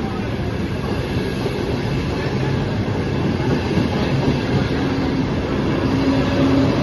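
Frecciarossa high-speed electric train running past a station platform: a steady rush and rumble from the passing carriages that grows slightly louder. A steady humming tone comes in near the end.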